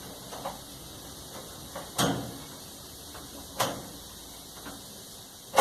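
A few separate knocks and clunks as the clothes dryer's front panel is pulled free of the clips that hold it, the loudest at the very end.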